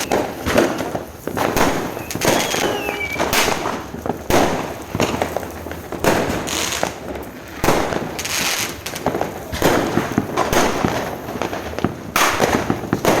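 Fireworks going off: a dense, irregular run of loud bangs and cracks, one after another with no steady rhythm.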